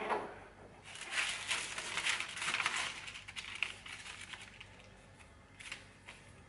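Thin plastic sheets crinkling and rustling as they are handled and spread flat on a workbench, followed by a couple of light ticks near the end.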